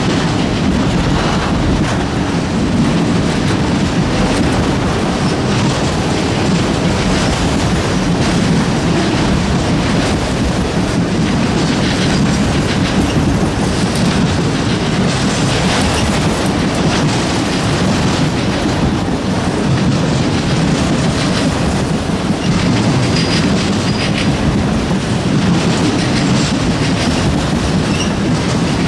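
Freight train cars rolling past at steady speed, a continuous rumble with wheels clacking over rail joints. A faint high wheel squeal comes through briefly about two-thirds of the way in.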